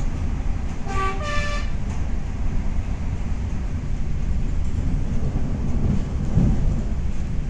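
Renfe series 470 electric multiple unit running along the line with a steady low rumble. About a second in comes a short two-note train horn toot, a lower note and then a higher one.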